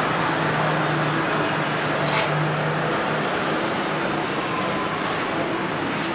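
Steady rush of street traffic noise with a low hum that fades out about three seconds in.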